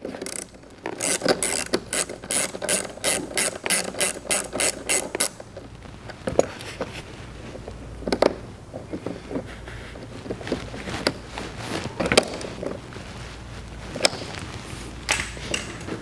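Ratchet wrench with a 10 mm socket clicking in quick even strokes, about four a second, as it tightens the nut on a battery's positive terminal. Then a few scattered single clicks and knocks of small metal parts being handled.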